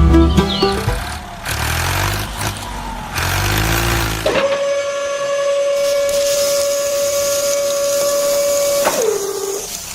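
A small motor running with a wavering pitch, then a steady high whine for about four and a half seconds that drops in pitch and cuts off near the end.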